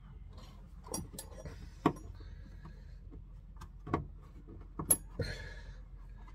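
Hands working a 25mm rubber grommet around a gas pipe and pressing it into a hole in the underside of a van: several separate sharp clicks and light knocks, with brief rustling as the grommet is handled.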